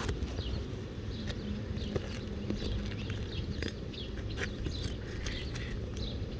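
Small birds chirping repeatedly, short quick notes, over a steady low rumble, with scattered sharp clicks and scrapes throughout.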